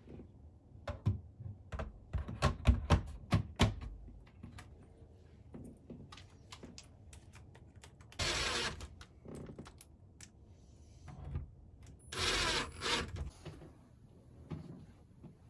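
Clicks, knocks and handling noise from equipment being fitted in a small room, a quick cluster of sharp knocks at first, then two short rasping bursts about four seconds apart.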